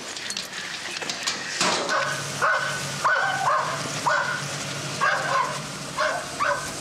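A dog barking repeatedly, a run of about ten short barks and yelps starting a couple of seconds in.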